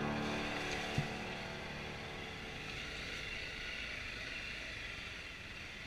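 Riding noise of a Honda CRF250L single-cylinder dirt bike, engine and wind on the helmet camera, fading out steadily while the last of a music track dies away in the first second. A single brief knock about a second in.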